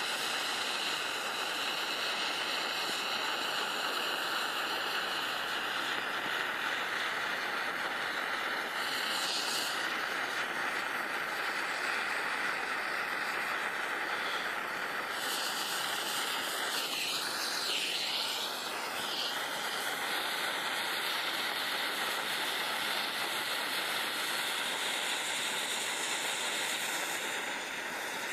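Weco fire-lighter stick (Anzündlicht) burning with a steady hiss from its strong, torch-like jet of flame.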